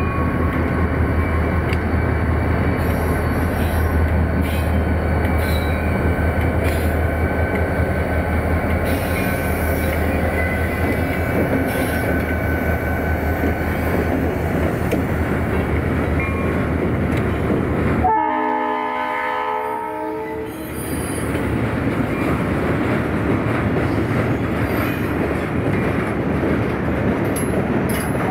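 EMD SD45T-2 diesel locomotive leading a train past, with a steady low engine rumble and wheel-on-rail noise. About two-thirds of the way in the sound changes abruptly and the locomotive's multi-note horn sounds for about two seconds; the horn starts again right at the end.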